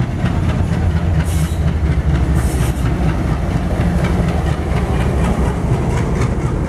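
WDG-3A diesel locomotive hauling an express train past close at speed without stopping: a steady low engine rumble with the wheels clicking over rail joints as the locomotive and coaches go by. Two short hisses about one and two and a half seconds in.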